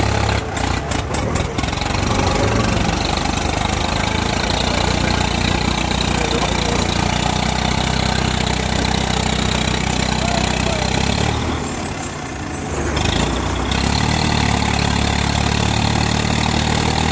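Tractor diesel engine running under load as it hauls a heavily loaded sugarcane trailer over rough ground: a steady low drone with a few clicks near the start. A little past the middle the engine sound drops away for about two seconds, then picks up again.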